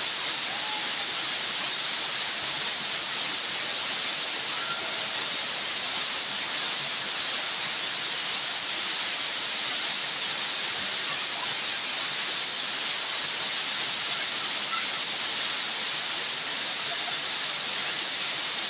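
Steady rush of flowing water, even and unbroken, with a few faint short chirps over it.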